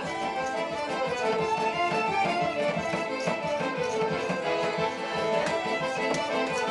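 Live Romani folk dance music played by a small band of violins and an accordion.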